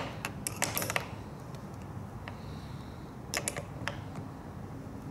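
Small metal clicks of a wrench working the mounting screws of a fuel cock on a plastic fuel tank as they are tightened: a quick cluster of clicks in the first second and another a little past three seconds in.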